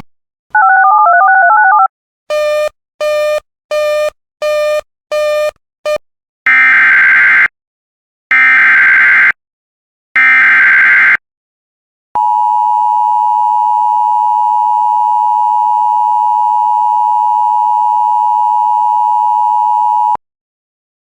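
Emergency Alert System broadcast tones. A warbling electronic two-note sound is followed by a quick run of about six short beeps. Then come three one-second screeches of SAME header data, and finally the EAS two-tone attention signal, a steady two-note tone held for about eight seconds, which announces the next warning.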